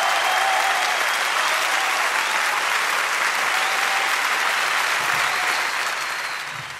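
Concert audience applauding as a live rock song finishes, a dense steady clapping that dies away near the end.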